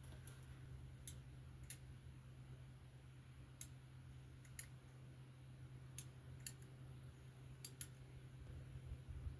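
Faint handling clicks as epoxy is injected from a plastic syringe: about eight short, sharp ticks at irregular intervals, over a steady low hum.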